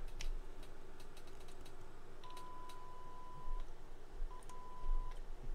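A small faceplate speaker from a Vertex VX-3200 radio, fed straight from a signal generator, plays a steady 1 kHz test tone in on-off beeps as the clip leads make and break contact on its terminals. The first beep lasts over a second, then comes a brief blip and a shorter beep near the end. The tone shows that the speaker itself works. A few light clicks of lead handling come before it.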